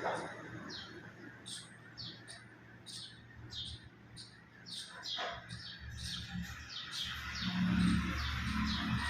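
A small bird chirping over and over, short high falling chirps about two or three a second. A low rumble builds in the last couple of seconds.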